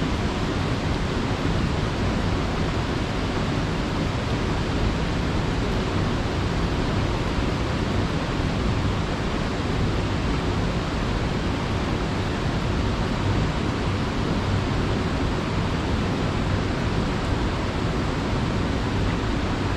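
Rushing water of a mountain stream, a steady, even rush with no breaks.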